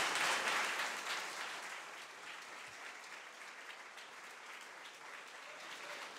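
Audience applauding at the end of a speech: strongest at first, then dying down after about a second and a half to lighter clapping.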